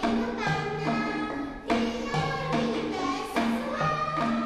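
Background music: a melody of held notes that change every half second or so.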